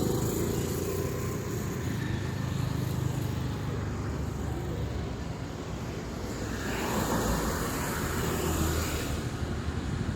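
Motor vehicle and road-traffic noise: a steady, fluttering low rumble, with a hissing swell from about six and a half seconds in to about nine seconds.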